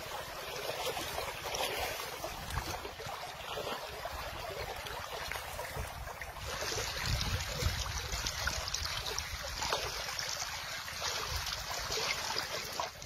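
Steady rush of a fast-flowing river, with wind rumbling on the microphone; the rush grows a little brighter and louder about halfway through.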